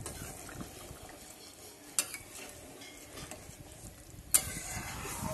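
A flat metal spatula stirring a simmering fish and potato curry in a large metal pan, with the low sizzle of the boiling gravy. The spatula clinks sharply against the pan twice, the louder one about four seconds in.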